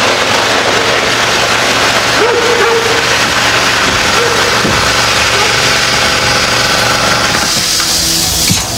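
A motor running steadily with a dense mechanical noise, dropping off shortly before the end.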